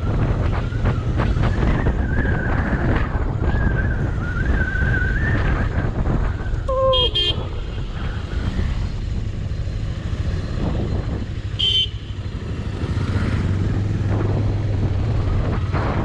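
Motorcycle engine running steadily under way, with wind rushing over the microphone. A short horn toot sounds about seven seconds in, and a brief, higher-pitched beep follows near twelve seconds.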